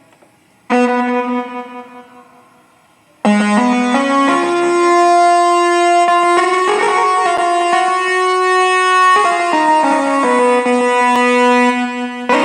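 Roland XPS-30 keyboard playing a synth sound: a chord struck about a second in that dies away, then held chords from about three seconds in that change every few seconds.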